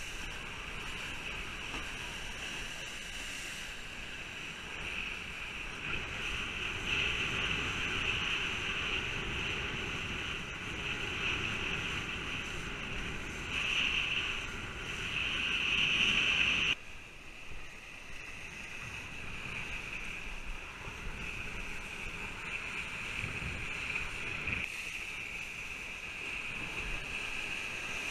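Wind rushing over an action camera's microphone and water hissing under a kiteboard as it planes across choppy sea. About 17 seconds in the sound drops suddenly to a quieter rush.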